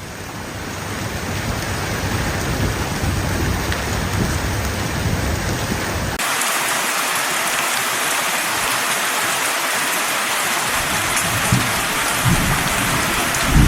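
Heavy rain pouring steadily. About six seconds in it switches abruptly to a different, hissier downpour, with a few low swells near the end.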